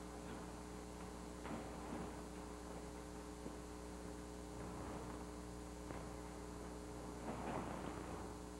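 Steady electrical mains hum, with a few faint scuffs and rustles of movement about 1.5 and 2 seconds in and again near the end.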